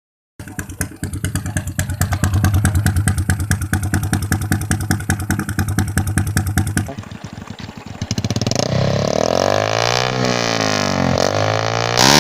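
Small motorcycle with a loud aftermarket 'mouse pipe' exhaust running with fast, rapid exhaust pulses. From about seven seconds in, an engine revs up and down several times.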